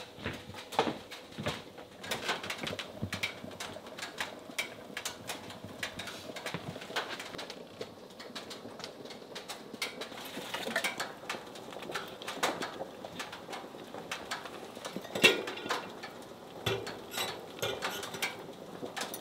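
Scattered clinks and knocks of glass jars, metal lids and a stainless pot being handled, irregular and short, with the loudest knock about fifteen seconds in.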